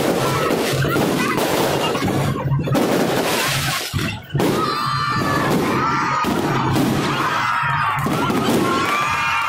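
Aerial fireworks bursting and crackling in rapid, overlapping succession. Crowd voices shout and scream over the bangs in the second half.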